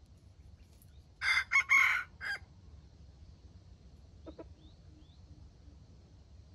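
A red junglefowl rooster crows once: a short, broken crow lasting about a second, starting a little over a second in.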